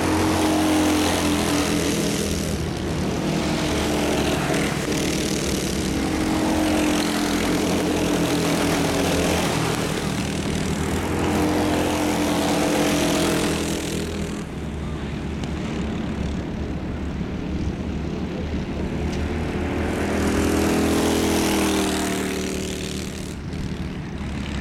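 Several racing kart engines running hard on track, swelling louder and fading as the karts pass near and draw away, their pitch rising and falling as they accelerate and lift off for corners.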